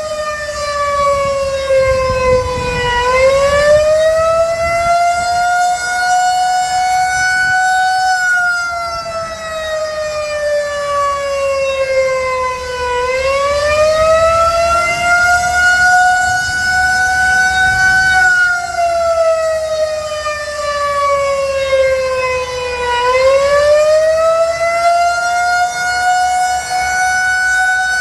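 Federal Signal 2001-130 rotating electromechanical outdoor warning siren sounding its test signal. Its pitch slowly rises and falls, one cycle about every ten seconds. A low traffic rumble runs beneath it.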